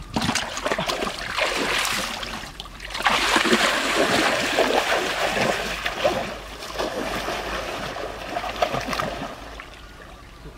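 Ditch water splashing and sloshing as people wade and grab for fish by hand; it dies down near the end.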